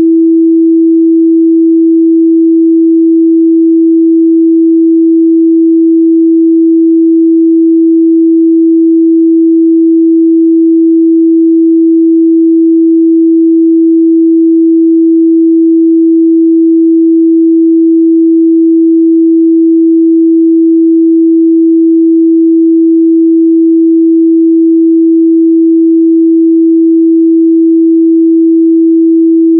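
A steady 328 Hz sine-wave test tone: one pure, unchanging mid-range pitch held at constant loudness.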